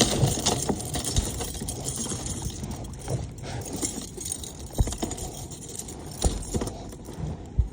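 Scattered knocks, taps and light rattles from a freshly caught trout being handled and unhooked in a kayak, over a steady wind rush.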